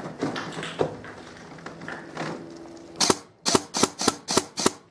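Airsoft gun firing six sharp shots in quick succession, about three a second, starting about three seconds in.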